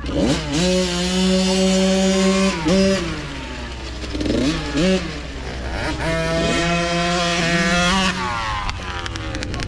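Small single-cylinder mini dirt bike engine revving. It climbs sharply at the start and holds high for about two seconds, drops, blips twice, holds high again for about two seconds, then falls away near the end.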